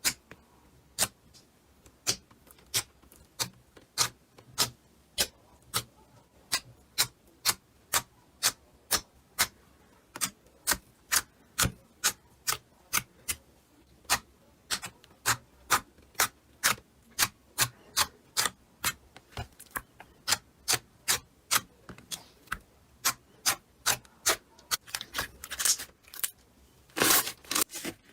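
Slime being pressed and popped, giving crisp clicks at a steady pace of about two and a half a second, ending in a short stretch of denser crackling.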